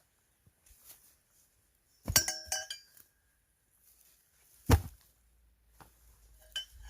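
Firewood being split with an axe. About two seconds in comes a quick rattle of sharp, ringing clinks. A single heavy chop follows near the five-second mark, and a few lighter ringing clinks come near the end.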